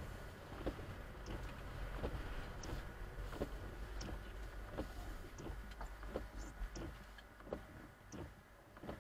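Car cabin noise while driving: a steady low engine and road rumble with irregular light clicks and knocks, roughly one or two a second.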